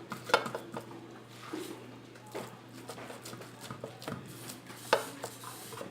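Light, scattered clicks and knocks of kitchen utensils and dishes being handled while a dish is assembled.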